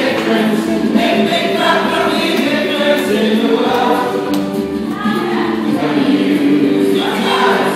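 Music with choir-like sustained voices over held chords.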